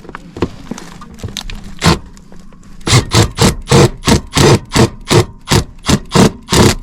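Cordless drill fitted with a right-angle bit attachment, run in short repeated trigger bursts to back out a screw. One burst comes near two seconds in, then from about three seconds a steady run of about three short bursts a second.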